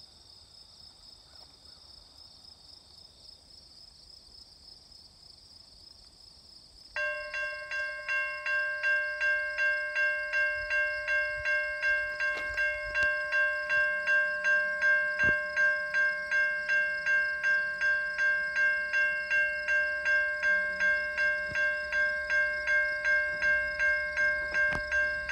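Railway level-crossing warning bell starting suddenly about seven seconds in and ringing steadily at about two strokes a second, signalling an approaching train. Before it, crickets chirp steadily.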